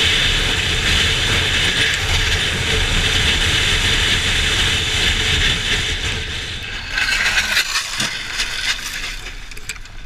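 Wind rushing over a moving motorcycle with its engine running underneath. About seven seconds in, a short clatter of knocks and rattles comes as a motorcycle crashes. Then the rush dies down as the bike slows, leaving scattered clicks.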